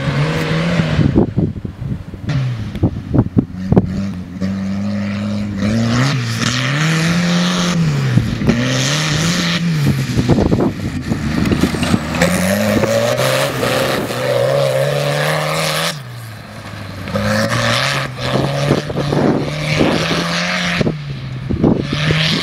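Hot-rodded tractor engine revving hard, its pitch rising and falling over and over as the tractor accelerates and eases off across the field, with wind crackling on the microphone.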